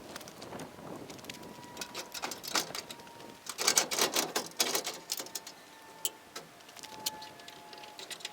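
Scattered metallic clicks and clanks from a combine's straw chopper being unpinned and rolled up, with a burst of rattling about three and a half to five seconds in.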